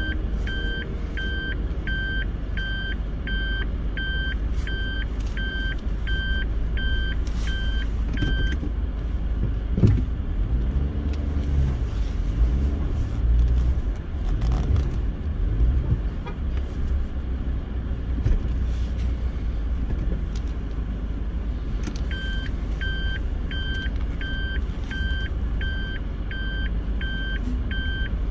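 A car's reverse-gear warning beeper beeps evenly, about two to three times a second, over the low rumble of the vehicle as it backs up. The beeping stops for a stretch in the middle, where there is a knock and the engine note rises and falls, then starts again near the end.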